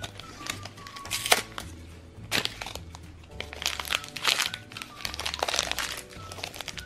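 Plastic and foil blind-bag packaging crinkling in repeated bursts as it is handled and torn open, over light background music.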